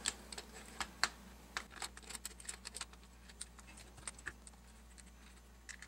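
Scattered light clicks and taps of an ACOG-clone scope's mount being fitted onto an AR-15's rail and its screw clamps turned. The clicks come thick for about three seconds, then thin out.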